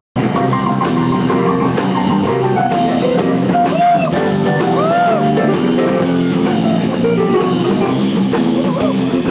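Live rock band playing: electric keyboard, electric guitar and drum kit.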